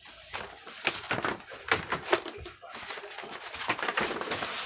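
Rustling and crinkling of packaging being handled during an unboxing, in a rapid irregular series of scrapes and crackles.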